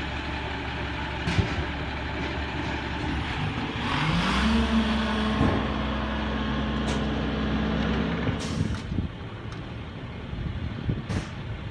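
Garbage truck's diesel engine idling, then revving up about four seconds in and holding the higher speed for about four seconds before dropping back. A burst of air hiss comes as it revs, and a few sharp clanks are heard.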